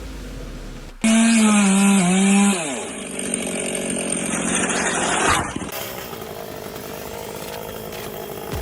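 A two-stroke chainsaw cuts in loudly about a second in, running at high revs with its pitch dipping and sagging as it bites into wood. A rough sawing noise follows for about three seconds, then it drops back to a quieter steady sound.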